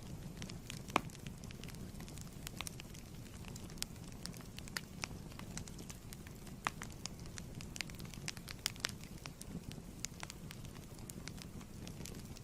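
Wood fire burning in a fireplace: a steady low rumble with irregular sharp crackles and pops, one louder pop about a second in.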